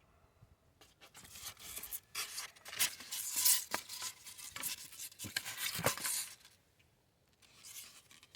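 Scraping and rustling with a few sharp clicks for about five seconds, then it stops.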